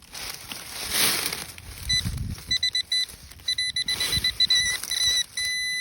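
Metal detector signalling a buried target, with short, choppy beeps from about two seconds in, turning into one steady held tone near the end. Scraping and rustling of dirt come in between.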